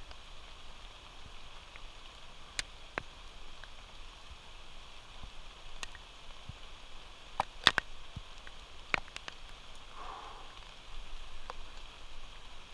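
Light rain falling, a steady soft hiss, with a few scattered sharp ticks; the loudest two come close together about eight seconds in.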